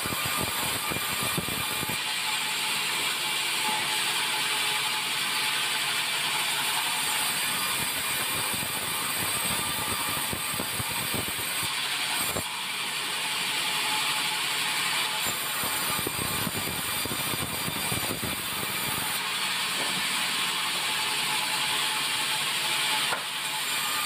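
Band sawmill running steadily, its blade cutting a white meranti log into thick boards, with abrupt changes in the sound about halfway and near the end.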